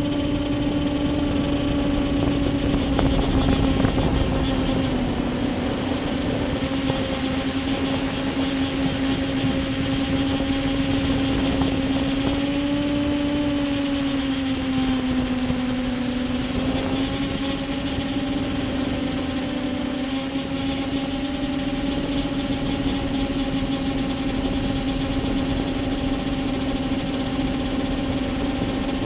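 Multirotor drone's brushless motors and propellers running with a steady hum and a thin high whine above it, the pitch wavering slightly and dipping about halfway through. The uploader suspects the ESCs or the motor bearings behind this odd sound and the vibrations that come with it.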